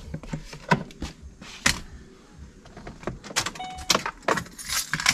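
Scattered clicks and light knocks at a 2011 Ford Expedition's driver door as its locks are tested, with a brief short tone about three and a half seconds in.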